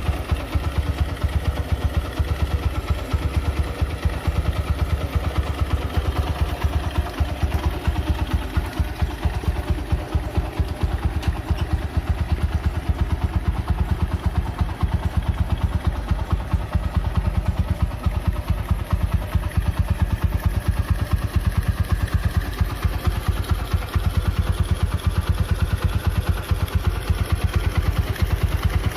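Honda Mega Pro single-cylinder four-stroke motorcycle engine running steadily, most likely at idle, with a rapid, even exhaust beat.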